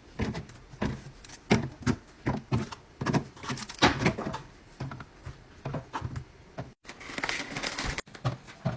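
Irregular knocks, clicks and clatter of containers and packages being set down and arranged in a fridge, several each second. Near the end there is a brief rustling hiss.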